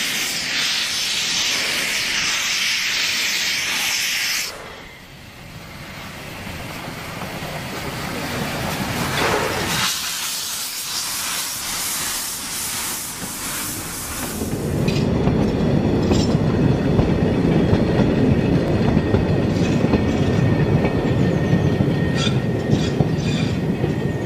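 Saxon IV K narrow-gauge steam locomotive 99 608 starting off with loud steam hiss from its open cylinder drain cocks, which cuts off suddenly a few seconds in. After that comes the sound of the train rolling: wagons rumbling over the track, with a faint high wheel squeal in the second half.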